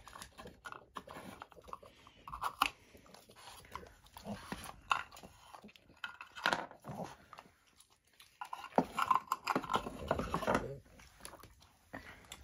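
French bulldog crunching and chewing a treat in irregular bites, with a busier, louder spell of chewing about three-quarters of the way through.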